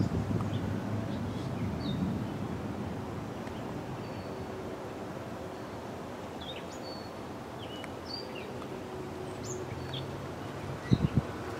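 Wind rumbling across the microphone ahead of a thunderstorm, stronger at first and then easing, with birds chirping repeatedly over it. A couple of sharp thumps near the end.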